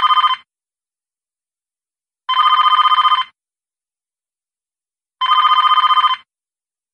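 Kechaoda 888 retro phone ringing with an incoming call: an old-style electronic trilling bell ringtone. The tail of one ring is followed by two full rings, each about a second long and about three seconds apart.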